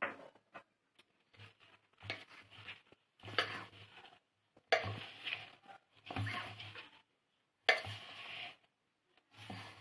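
A hand working crumbly flour, oil and milk into dough in a steel bowl. There is a run of scraping, rubbing strokes against the metal, about one a second, with short pauses between them.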